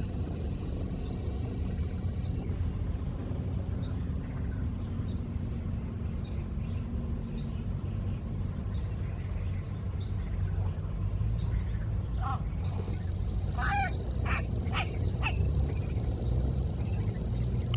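Outdoor nature ambience with a steady low rushing noise and a high steady buzz that stops early on and returns about two-thirds of the way in. A bird repeats a short high chirp about once a second. Near the end, a handful of louder short animal calls come in quick succession.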